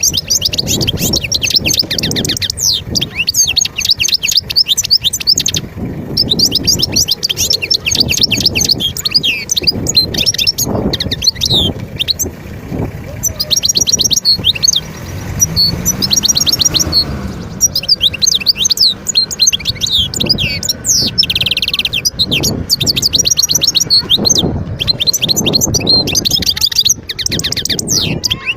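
European goldfinch singing a long, fast twittering song of rapid high notes, broken by a couple of short pauses.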